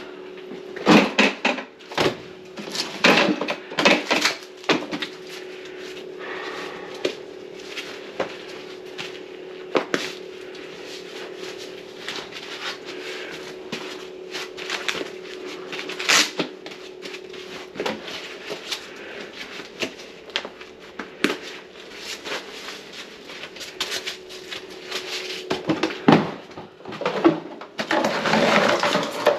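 Irregular knocks, clicks and clatter of things being handled, over a steady hum that fades about two-thirds of the way through.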